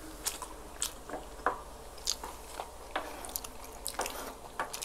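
Close-up chewing and mouth smacks of people eating spoonfuls of shawarma rice: a steady run of short, irregular clicks.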